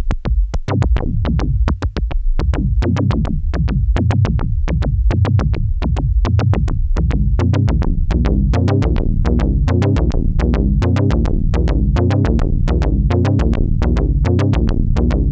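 Electronic music: a steady drum-machine beat with synthesizer.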